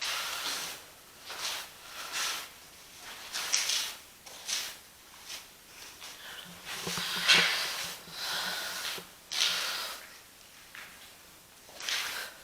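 Footsteps scuffing and crunching on a gritty tunnel floor at an uneven walking pace, with the loudest step about seven seconds in.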